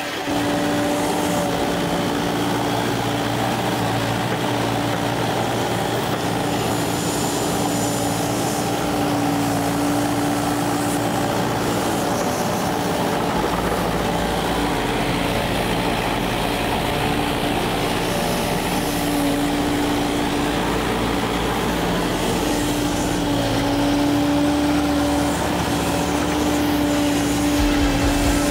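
Kubota KX080 excavator's diesel engine and hydraulics running steadily under load as the bucket digs soil, the engine note swelling and easing with the work.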